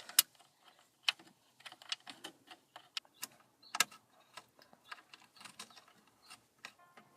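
Irregular sharp clicks and small knocks of hand tools on screws, bolts and plastic dash trim, with a couple of louder clacks about a quarter second in and a little under four seconds in.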